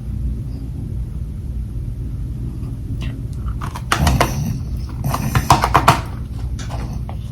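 Bites crunching into balls of humidifier freezer frost, heard as a dense crackling crunch in two clusters about halfway through, over a steady low rumble.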